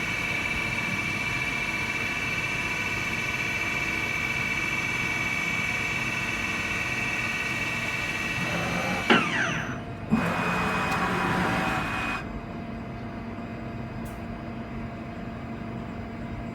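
HAMAI 3VS CNC milling machine running with a steady high whine. About nine seconds in comes a sharp knock and a falling whine, then a hiss for about two seconds, leaving a quieter steady hum.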